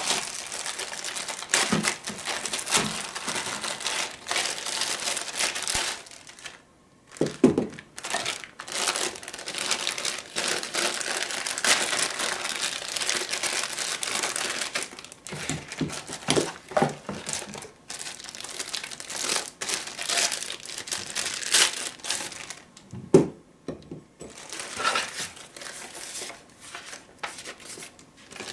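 Clear plastic packaging bags crinkling and rustling as parts are unwrapped by hand, in long stretches with a couple of short pauses. A few knocks as the parts are handled.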